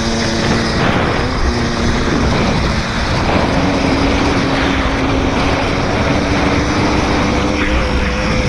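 Motorcycle engine running steadily at speed over sand, its note stepping up slightly about three seconds in, with wind rushing over the microphone.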